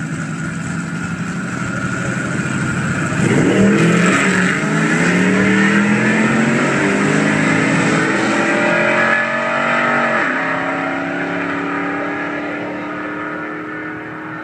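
Pickup truck launching hard off the drag-strip line about three seconds in. The engine revs up through the gears, each upshift a drop in pitch, then the sound fades as the truck runs away down the track.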